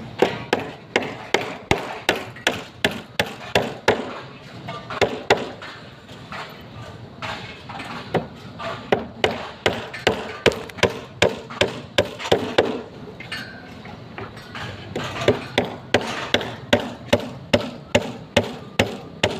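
A hammer striking repeatedly, about two blows a second, in runs of blows with a couple of short pauses between them.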